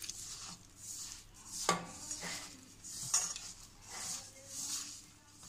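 Hand kneading crumbly semolina-and-flour dough in a steel bowl: repeated rubbing, scraping swishes against the metal, with a couple of light metallic clinks.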